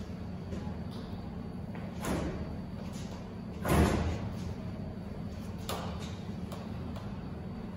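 Cloth wiping a glass display counter: a few short rubbing swishes, the loudest a little before four seconds in with a dull thump, over a steady low hum.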